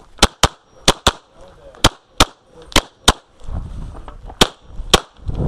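Pistol shots fired rapidly during a USPSA course of fire: ten sharp shots in five quick pairs, two on each target.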